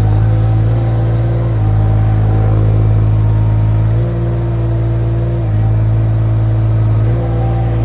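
Mini skid steer engine running hard, its note shifting up and down in steps several times as the load changes.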